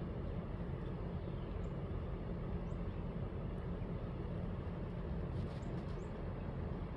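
Daikin Atmosphera cold-climate heat pump outdoor unit running steadily while heating: a quiet, even low hum.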